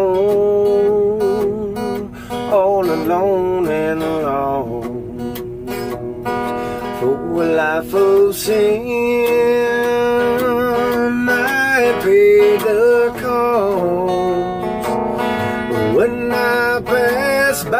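Ibanez hollow-body electric guitar being played: strummed chords held underneath a melody line whose notes bend and waver.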